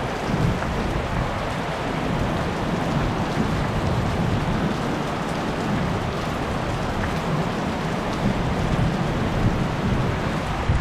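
Heavy rain falling steadily in a thunderstorm, with low rolling rumbles of thunder coming and going underneath.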